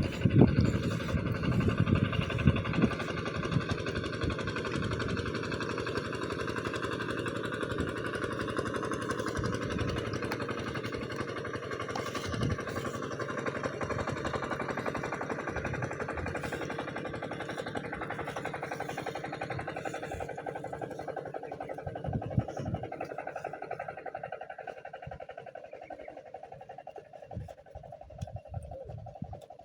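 An engine running steadily with a rapid, even pulse, growing fainter over the last several seconds.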